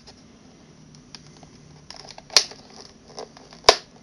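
Sharp clicks and snaps of plastic parts being handled and fitted, two loud clicks (one a little past halfway, one near the end) with fainter ticks between.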